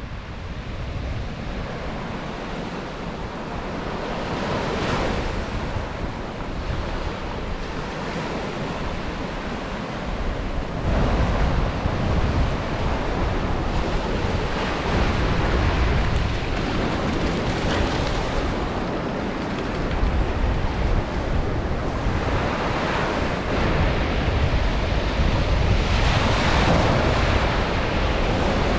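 Ocean surf breaking on a beach, the wash swelling and easing every several seconds. Wind buffets the microphone with a low rumble that grows louder about a third of the way in.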